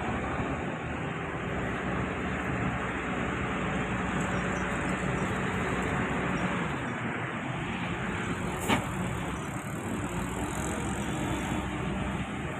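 Hitachi ZX excavator's diesel engine running steadily under a trenching load, with one sharp click about nine seconds in.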